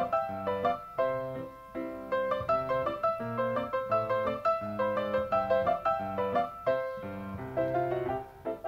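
Background piano music: a continuous, flowing run of notes played several at a time.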